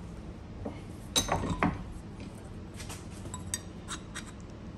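Metallic clinks and taps of a steel strong-tie bracket being taken out of a bench vise and handled, loudest in a quick cluster about a second in, then lighter ticks as a metal sliding bevel is set against the bracket.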